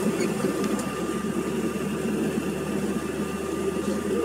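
Cabin noise of a Bombardier CRJ1000 taxiing: a steady hum from its idling rear-mounted turbofan engines and the cabin air, with a thin steady whine above it.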